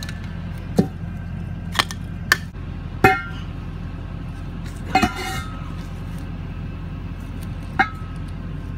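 A long steel tube clanking against a steel pipe sleeve as it is handled and seated upright: about six sharp metallic clanks, the two loudest, about three and five seconds in, ringing on briefly. A steady low hum runs underneath.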